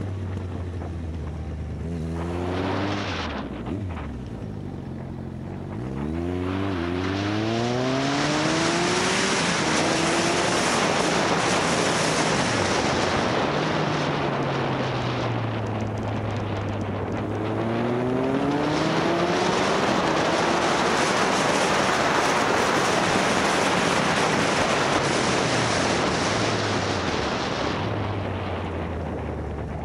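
Motorcycle engine on the move, its pitch climbing as it accelerates early on and around the middle, then dropping back low, while wind rush over the microphone builds with speed and covers much of the engine in the middle stretch. The wind eases and the engine falls back to low revs near the end, then begins to rise again.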